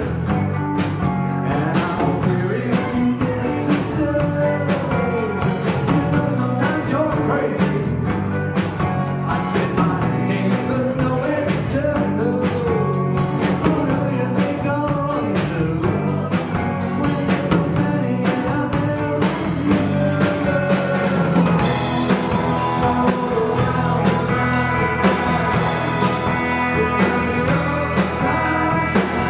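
Live rock band playing with electric bass, electric guitar and drum kit, and a male lead vocal from the bassist. The singing runs through about the first two-thirds, then gives way to an instrumental passage with held notes over the drums.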